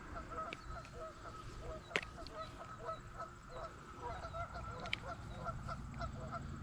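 A flock of birds calling with many short, rapid, overlapping calls. A sharp click comes about two seconds in and another near five seconds.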